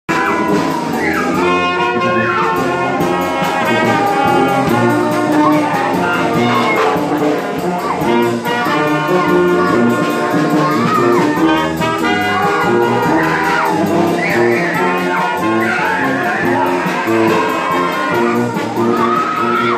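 Live brass band playing, with trumpets carrying the melody over a bass horn and a drum kit keeping a steady cymbal beat.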